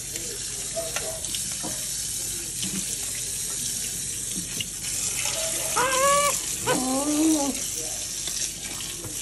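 Kitchen faucet running steadily into a sink and over a wet capuchin monkey being washed by hand. About six and seven seconds in, the monkey gives two short, high, arching calls.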